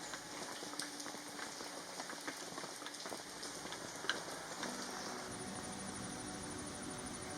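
Monsoon rain falling, with scattered close drops pattering and ticking. About two-thirds through it changes to a steadier, denser hiss of rain.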